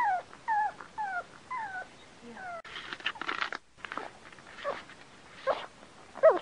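Dog whimpering and whining: short high cries that fall in pitch, about two a second at first. A brief noisy stretch follows about three seconds in, then a few more spaced-out whines.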